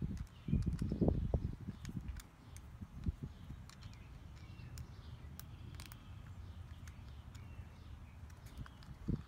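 A Manfrotto 410 geared tripod head being turned over in the hands while a hex key works its screws: dull knocks and handling rumble in the first second and a half and again near the end, with small sharp clicks scattered in between.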